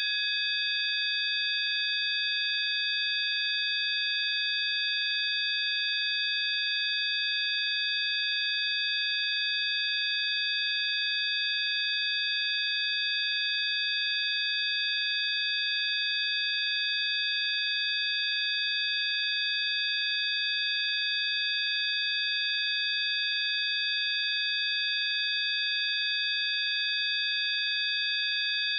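Synthesized healing-frequency tone: several high, pure electronic sine tones held together without any change, over a faint hiss.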